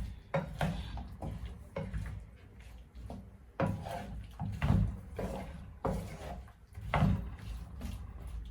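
Irregular knocks and clatters of kitchen utensils and containers being handled, about a dozen short hits at uneven intervals.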